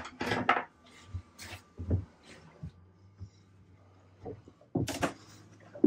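Cabinet doors in a yacht's interior being shut and latched: light knocks and clicks, the sharpest near the start and again about five seconds in, over a faint steady low hum.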